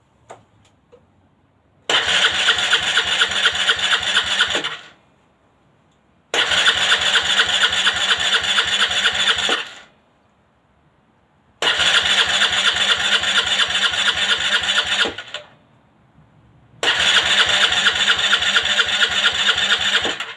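Aprilia Leonardo 125 scooter's single-cylinder four-stroke engine being cranked on its electric starter in four separate tries of about three seconds each, with pauses between; it does not catch and run, as expected after standing unused for a long time. Two small clicks come just before the first try.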